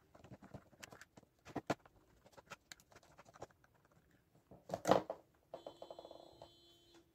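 Plastic clicks and snaps of a wireless speaker's casing being pried open and handled, with one louder snap about five seconds in. Near the end a steady electronic ringing tone sounds for about a second and a half.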